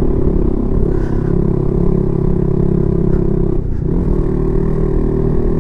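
Honda CB150X's single-cylinder engine pulling steadily over a rough brick-paved road, straining under load, with a low rumble and some clatter. The engine note briefly breaks about two-thirds of the way through.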